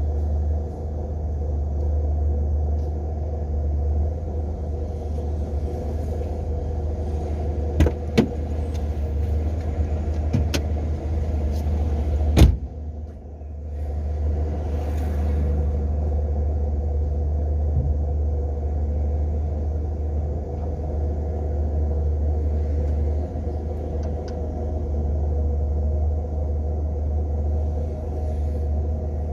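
Steady low rumble of a moving car, road and engine noise heard from inside the cabin, with a few sharp clicks around eight and ten seconds in and a louder knock about twelve seconds in.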